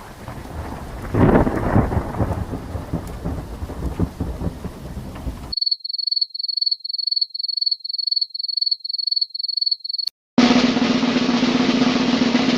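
A run of stock sound effects. First a thunder rumble over rain, then a quick series of high electronic beeps about two a second, then a steady low buzzing tone.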